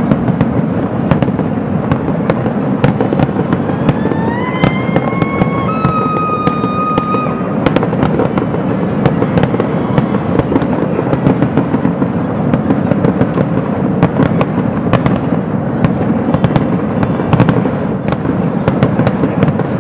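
Fireworks going off in a dense, continuous crackle of pops and bangs. A few whistling fireworks rise in pitch and then hold a steady tone about four to seven seconds in.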